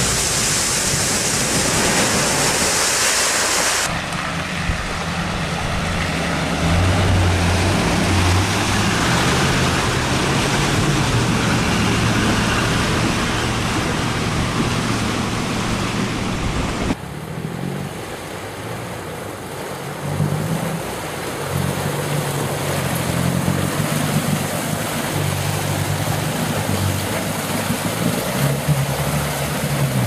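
Land Rover Discovery engines pulling under load through fords, with water rushing and splashing around the wheels. It opens with a loud hissing spray as one vehicle charges into the water, and the engine note rises and falls as the drivers work through the crossings.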